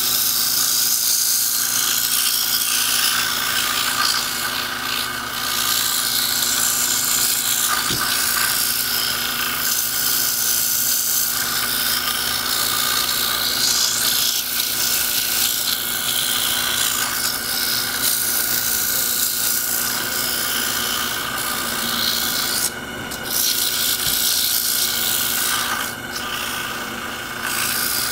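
Coarse 60-grit sandpaper held against a wooden sphere spinning in a small lathe gives a continuous scratchy hiss over the lathe motor's steady whine. The hiss drops out briefly twice near the end.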